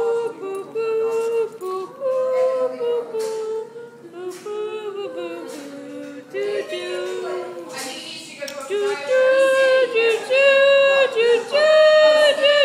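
Voices singing unaccompanied in drawn-out, held notes, getting louder in the second half.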